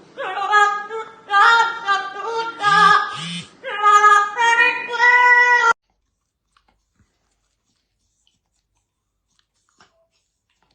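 A high-pitched voice singing a melody, cutting off suddenly about six seconds in, followed by near silence with a few faint clicks.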